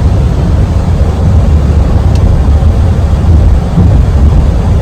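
Steady, loud low rumble of road and engine noise inside a moving SUV's cabin.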